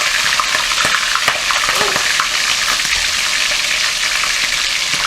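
Chicken pieces deep-frying in hot oil in a pot: a loud, steady sizzle with scattered sharp crackles.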